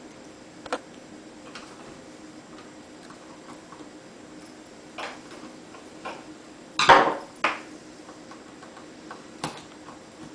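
Small Phillips screwdriver working the tiny screws of a laptop screen assembly: scattered light clicks and taps, with a louder short clatter about seven seconds in.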